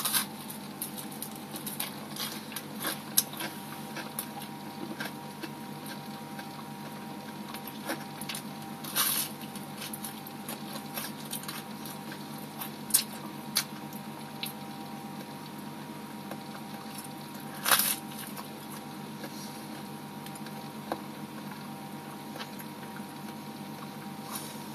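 A person eating a baked cheese and tomato sub roll: chewing noises with three louder bites, one at the start, one about nine seconds in and one near eighteen seconds. Under them runs a steady hum with the small patter of an aquarium air stone's bubbles.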